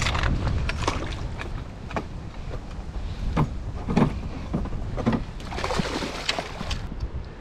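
Musky splashing in a landing net as it is scooped up beside the boat, with a bigger burst of splashing about six seconds in. Wind rumbles on the microphone underneath.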